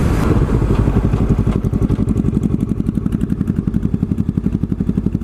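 Motorcycle engine running at low revs with a steady, even pulsing beat. Wind rush dies away about a second and a half in as the bike slows.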